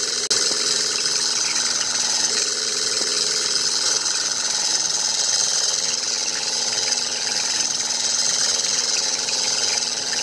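Miniature model diesel engine driving a small centrifugal water pump, running steadily with a fast mechanical chatter while the pump moves water.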